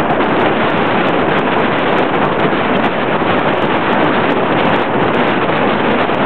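Steady, loud wind rush buffeting the microphone of a camera carried on a moving motorbike.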